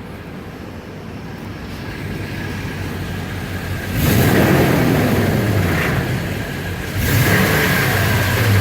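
Toyota Sequoia's V8 engine running, revved up sharply twice, about four seconds in and again near the end, with the pitch falling back after each rev. The owner traces the rattling on this vehicle to a damaged muffler.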